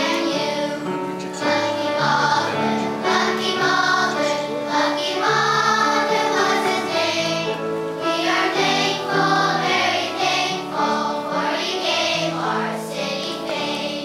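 Children's choir singing a song in unison, accompanied by an upright piano playing steady bass notes.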